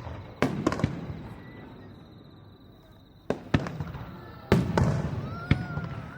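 Aerial firework shells bursting, each a sharp bang trailing off in echo. Three come in quick succession at the start, then after a lull of about two seconds several more follow.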